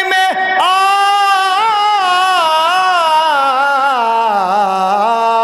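A man singing a long, drawn-out phrase of Urdu verse in the sung recitation style of a mushaira. The held notes waver, then slide lower about four seconds in.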